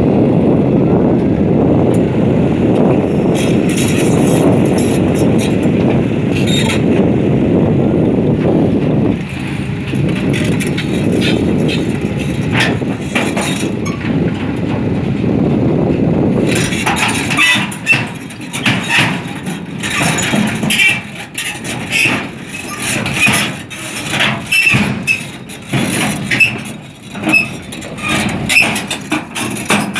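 Caterpillar 320D crawler excavator running and moving on its tracks with a steady rumble. From a little past halfway the steel track shoes clank and knock rapidly and irregularly as the machine climbs onto a trailer's steel loading ramp.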